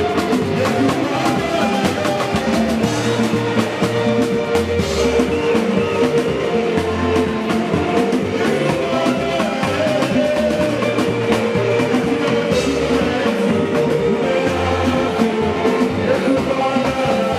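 Live band playing dance music: drum kit, electric guitar and bass under a sung vocal, steady and loud throughout.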